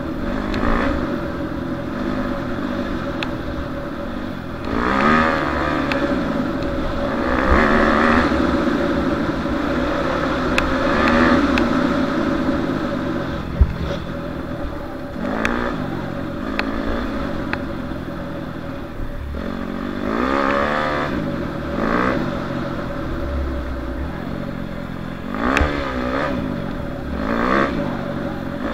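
Yamaha YZ250F four-stroke single-cylinder dirt-bike engine under way, revving up and dropping back again and again as the rider works the throttle and gears along a dirt track. A few sharp clicks break through, the loudest about halfway through.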